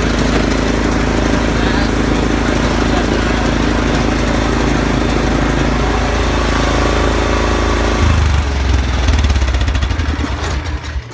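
Yard Machines lawn tractor's 420cc engine running steadily. About eight seconds in its note drops lower, and near the end it fades away.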